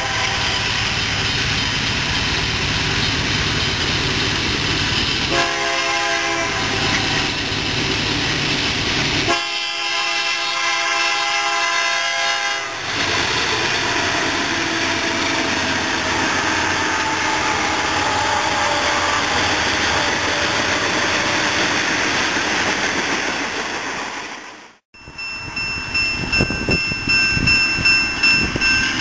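Diesel freight locomotive's air horn blowing long blasts for a grade crossing, then the freight train rolling past in a steady rumble of wheels and cars. After a brief gap near the end, a pulsing ringing begins.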